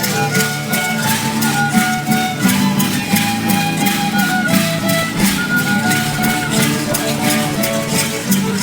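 Traditional folk dance music played live: a high melody of held notes stepping up and down over a steady low accompaniment, with an even, regular beat.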